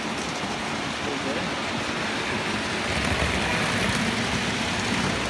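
Indistinct background voices over a steady noisy hubbub, growing a little louder about halfway through.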